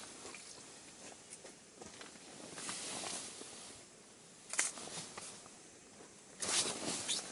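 Rustling and scraping of ice-fishing rods and gear being handled on the ice, with a sharp knock about four and a half seconds in and a louder cluster of sharp sounds about six and a half seconds in.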